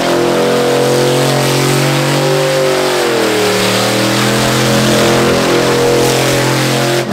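Chevrolet Silverado pickup's engine held at high revs during a burnout, rear tyres spinning on the asphalt with a hiss under the engine note. The revs sag briefly about three seconds in and climb back.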